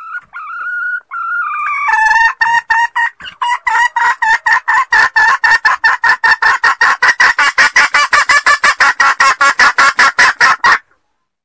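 Female junglefowl (hen) calling, the lure call used to attract junglefowl: a few drawn-out gliding notes, then a long run of short clucking notes that speeds up to about five or six a second and stops abruptly near the end.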